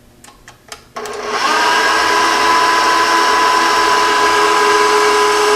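Electric stand mixer switched on to high speed, whipping egg whites with cream of tartar toward soft peaks. After a few faint clicks, the motor starts about a second in, its whine rising quickly, then runs steadily.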